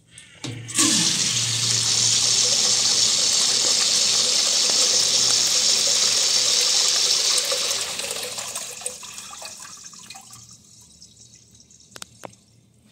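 Wall-hung urinal flushed by its flushometer valve: a sudden rush of water about a second in runs steadily for about seven seconds, then tapers off as the valve shuts. Two short clicks near the end.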